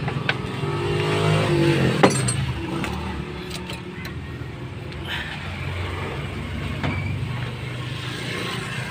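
An engine running steadily with a low hum, with light clicks and a sharp knock about two seconds in.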